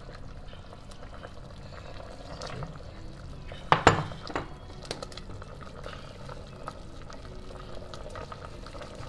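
Metal ladle stirring and scooping tom yum soup simmering in a stainless steel pot, with liquid pouring back off the ladle. A sharp metal clank, the loudest sound, as the ladle knocks the pot about four seconds in, and a few lighter clinks after it.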